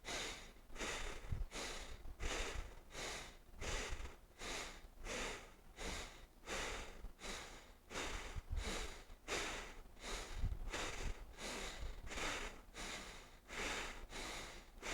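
Bhastrika pranayama (bellows breathing): forceful, evenly paced breaths in and out through the nose, about three every two seconds.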